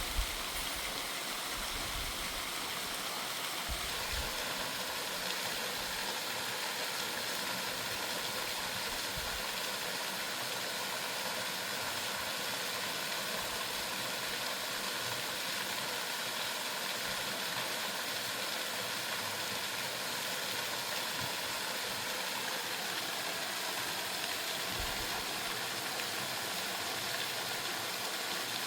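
Steady rushing of a waterfall, an even noise that holds the same level throughout.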